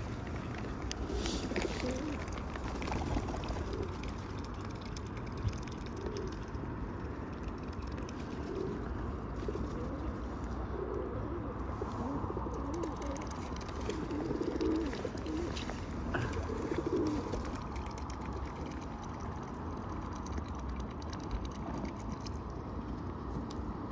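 Feral pigeons cooing, soft low coos repeating every few seconds over a steady low rumble.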